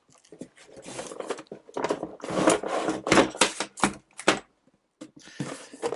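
Cardboard packaging of a fan box being opened and pulled off by hand: a quick run of sharp clicks and scraping rustles. After a short pause near the end come a few more taps.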